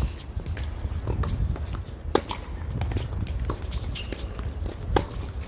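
Tennis ball being struck by rackets and bouncing on a hard court: a string of sharp pops, the loudest about two seconds in and again near the end, over a steady low rumble.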